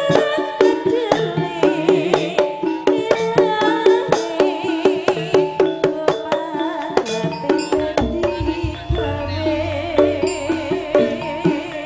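A live jaranan ensemble plays a fast, busy rhythm: kendang hand drums and gamelan metallophones strike in quick succession, and a wavering melody line runs above them. A deep, resonant low tone joins about eight seconds in.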